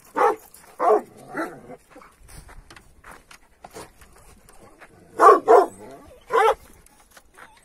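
Large farm dogs barking in short, deep barks: three in the first couple of seconds, then a pause, then two quick barks and one more about five to six seconds in.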